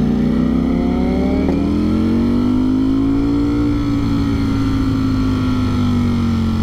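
Ducati Streetfighter V4S's 1103 cc V4 engine under way at a steady cruise, its note rising gently for a few seconds and then easing off a little. It is heard through a microphone inside the rider's helmet, over a steady low rumble of wind and road noise.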